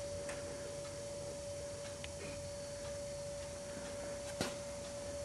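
Faint steady electrical whine at one pitch from the HHO generator's electronics, with a single click about four seconds in.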